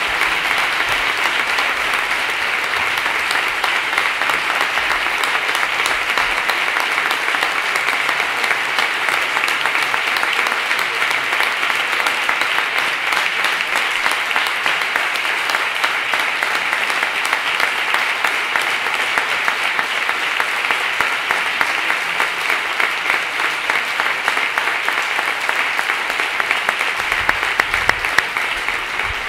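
A large audience applauding steadily: many hands clapping in a dense, sustained ovation that eases slightly near the end.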